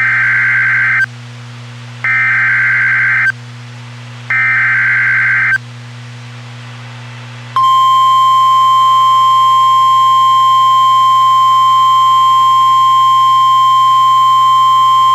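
Emergency alert SAME header: three raspy digital data bursts about a second long each, two seconds apart. About 7.5 s in, a long steady 1050 Hz weather-radio warning alert tone begins; it signals that a warning message follows. A low electrical hum runs under it.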